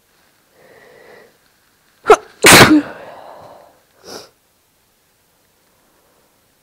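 A person's deliberately induced sneeze. A faint in-breath leads up to it. About two seconds in comes a short sharp burst, followed at once by a longer, loud blast that trails off. A brief breath follows about four seconds in.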